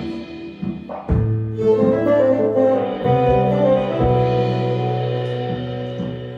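A small band playing an instrumental passage: guitar, violin, clarinet and drums. Long held notes sit over a low sustained note, with a few drum hits, and the sound eases off toward the end.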